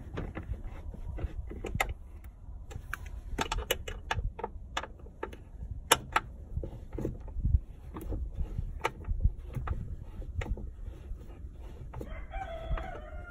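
An Allen wrench turning Allen-head bolts on a metal grab-handle bracket, with irregular metal clicks and knocks as the hex key is repositioned and the bolts are tightened. Near the end an animal gives one long, slightly falling call.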